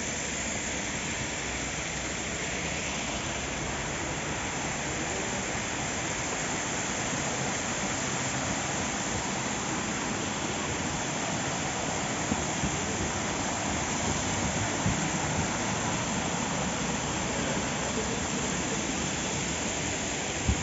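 Water spilling down an artificial rock waterfall: a steady, even rush of falling water. A few light knocks show in the second half.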